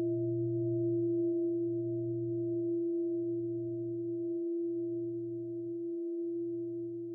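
Meditation bell ringing out after being struck, a long fading ring: steady pure tones over a lower hum that swells and dips in slow waves, the waves coming further apart as it dies away.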